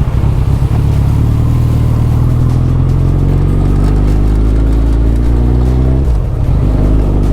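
Suzuki Hayabusa's inline-four engine pulling under acceleration, its pitch climbing steadily, then a brief break about six seconds in, a gear change, after which it carries on from a lower pitch.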